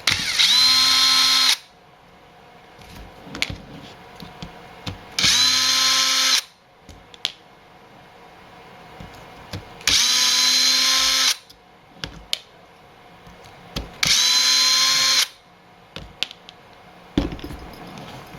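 Cordless power driver backing out small screws, in four short runs of about a second and a half each. The motor whine rises quickly at each start, then holds steady. Small clicks and handling knocks come between the runs, and there is a single thump near the end.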